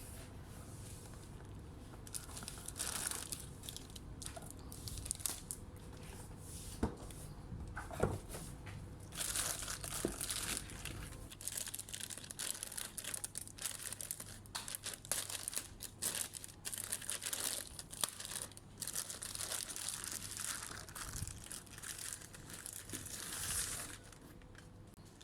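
Plastic packaging crinkling and rustling as it is handled and pulled open, in irregular bursts with a few sharp clicks, dying down near the end.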